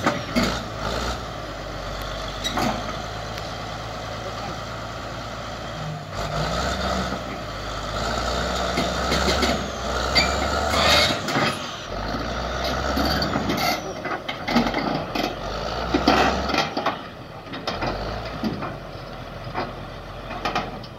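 Large crawler bulldozer's diesel engine working hard and swelling and easing several times as the machine maneuvers, with scattered clanks and knocks from its steel tracks and undercarriage.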